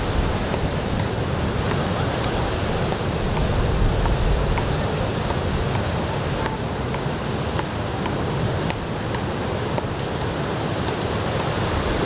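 Ocean surf from a typhoon swell breaking and washing up the beach in a steady rush, with wind buffeting the microphone.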